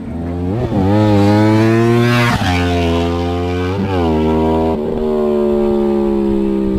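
Sport motorcycle accelerating hard through the gears: the engine note climbs and drops sharply at three upshifts about a second and a half apart, then holds a steady note that slowly sinks.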